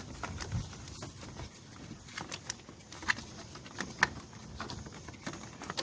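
Irregular light clicks and taps, about a dozen sharp ticks, from small parts being handled while a fuse holder cap and cover are fitted during wiring.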